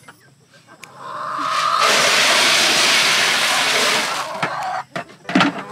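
Water poured from a blue plastic pail into a container: a steady splashing pour that swells about a second in, runs for about two seconds, then tails off.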